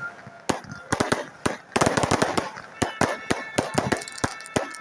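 Fireworks going off in a rapid, irregular string of sharp bangs and crackles, several a second. A few steady high tones join in after about three seconds.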